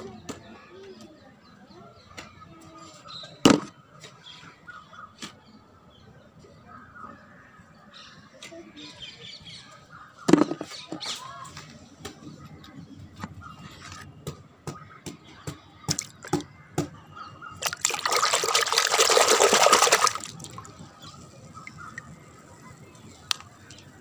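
Hard plastic toy animals knocking and clattering against concrete and a plastic bucket, with two sharp loud knocks and many light taps, then a rushing, splashy noise for about two seconds near the end.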